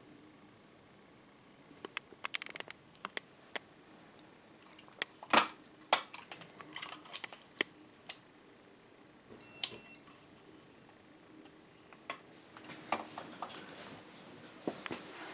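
Scattered sharp clicks and taps of handling, with one short electronic beep a little over halfway through, over a faint steady hum.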